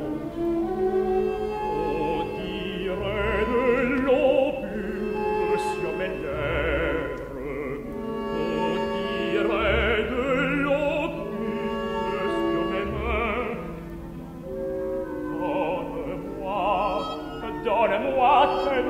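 Opera singers singing with strong vibrato over a full orchestra. It is an old live mono recording turned into artificial stereo, so the sound is narrow and dull, with little top end.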